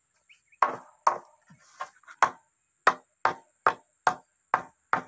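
Hammer driving nails: about ten sharp, ringing blows at a steady two to three a second, starting about half a second in.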